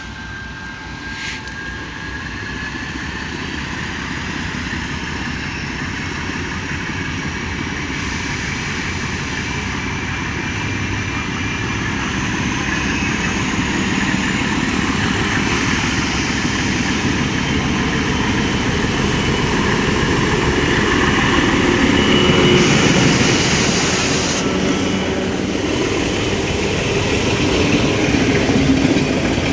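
Sri Lanka Railways M4-class diesel locomotive approaching under power, its engine steadily growing louder and loudest as it passes, then the coaches rolling by with a clatter of wheels on rails near the end.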